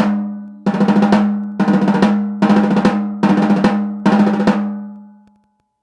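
A 14-inch snare drum tuned to about 204 Hz, struck once and then in short clusters of quick hits about once a second. Each stroke leaves a strong sustained ring at the tuned pitch with quite a bit of overtone, and the ring fades out after the last hits.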